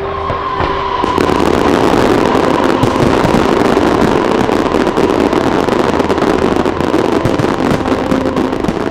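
Fireworks barrage crackling densely: countless small pops and crackles merge into a loud, steady rush. It swells about a second in and holds.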